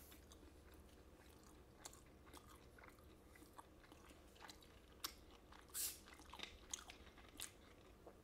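A man chewing food close to the microphone: quiet, scattered wet mouth clicks and smacks, with a louder, longer one about six seconds in.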